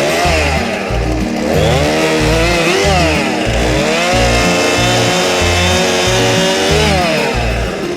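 Two-stroke chainsaw cutting branches of a fallen maple tree: its engine pitch sags under load and rises again several times as the cuts bite and free up. Background music with a stepping bass line plays under it.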